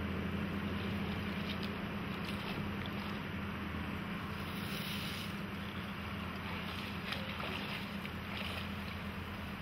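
Steady rush of a flowing river with wind buffeting the microphone, over a steady low hum, and a few faint rustles of branches being handled.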